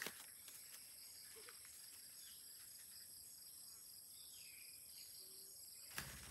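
Near silence outdoors: faint, steady high-pitched insect chirring, with a brief faint bird call about four seconds in and a sudden knock near the end.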